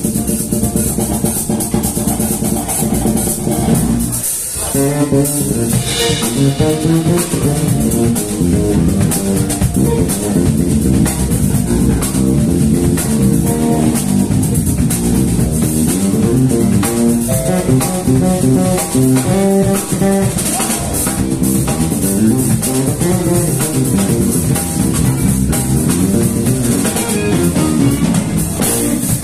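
Live band playing an instrumental jazz-funk number on electric guitars, electric bass, drum kit and keyboard. A held chord breaks off about four seconds in, and the band comes back in with busy, shifting lines over the drums.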